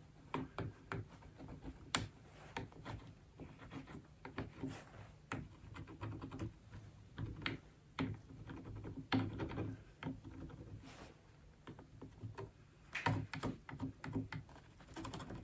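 Agate burnisher rubbing and tapping over gold leaf in the crevices of a gilded carved ribbon ornament, pressing down and polishing the leaf: faint, irregular little clicks and scratches.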